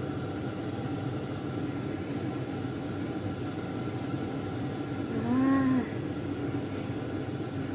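A woman's short hummed 'mmm', rising and falling over about half a second, about five seconds in, over a steady background hum.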